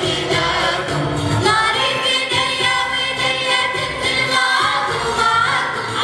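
Youth choir singing an Arabic song, accompanied by an oud and an electronic keyboard.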